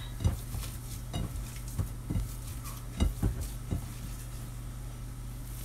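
A hand mixing and pressing mashed potato and cheese in a ceramic bowl, with soft handling noise and several short sharp knocks and clicks against the bowl, most of them in the first four seconds.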